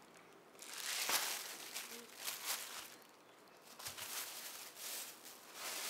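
Plastic shopping bags and wrapping rustling and crinkling in short bouts as they are handled.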